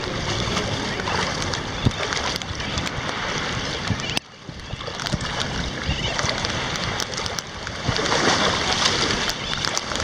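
Shallow sea water splashing and sloshing around the legs of someone wading, under wind buffeting the microphone. The noise drops suddenly about four seconds in, then builds again and is loudest near the end.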